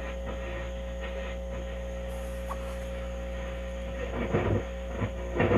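Steady hum with light hiss from a vintage tube radio turned almost wide open, fed by a 1947 Pilot Pilotuner T601 FM tuner as its knob is turned. There are two brief louder bursts near the end. The tuner is barely picking up stations, which the owner suspects is down to weak tubes.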